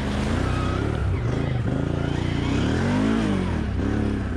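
ATV engine revving up and down as it is ridden off-road, its pitch rising and falling several times, with the biggest climb and drop about three seconds in.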